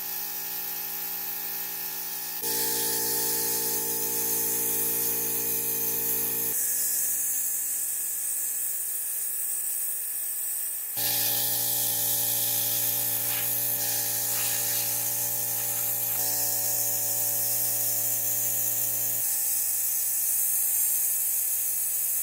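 A small electric motor or power tool running steadily, its pitch and tone changing abruptly every few seconds as short clips are joined.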